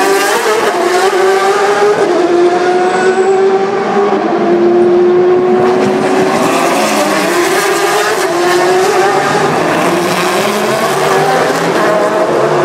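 Sports-racing cars' engines running loud as several cars pass one after another, their notes rising and dropping as they brake and accelerate.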